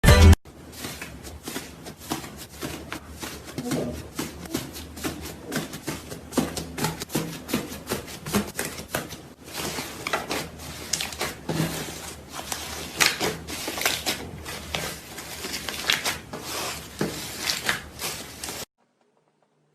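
Slime being squeezed and worked, giving a dense stream of irregular clicks and crackling pops, opening with a brief loud burst. It cuts off suddenly near the end.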